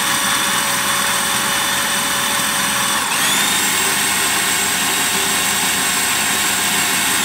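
Electric food processor running as it blends a batch of hummus, its motor whining steadily. The pitch dips briefly and picks up again about three seconds in.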